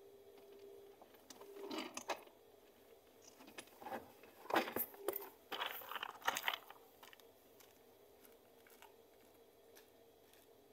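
Scuffling and crunching noises close to the microphone in three short irregular clusters, after a faint steady hum in the first second.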